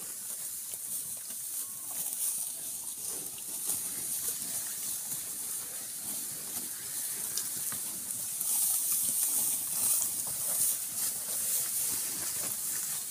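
Water buffaloes and cattle grazing dry grass at close range: crisp tearing and rustling of stalks as they crop and chew. A steady high hiss runs underneath and grows louder about eight seconds in.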